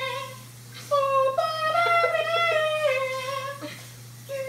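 A person singing a wordless melody in a high voice, with long held notes that slide in pitch. One phrase ends about half a second in, a second runs from about a second in to past three seconds, and a new phrase starts at the very end. A faint steady low hum lies underneath.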